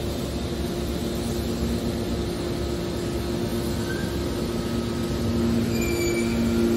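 A machine running with a steady hum of two held tones, growing a little louder near the end.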